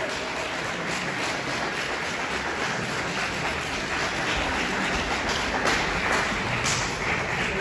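Audience applauding, a dense, steady patter of clapping.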